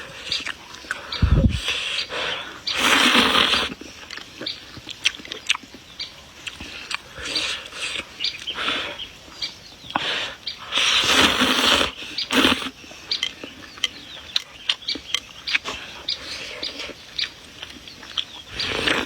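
Close-miked eating: chewing with many short wet mouth clicks, and two longer slurps, one about three seconds in and one about eleven seconds in. There is a low thump just over a second in.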